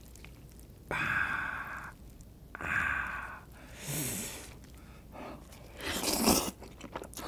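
A person eating: two breathy gasps about one second and three seconds in, then stir-fried instant noodles slurped into the mouth around four and six seconds in.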